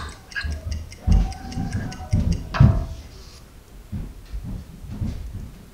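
A clock ticking fast, fading out about three seconds in, over music with a low beat.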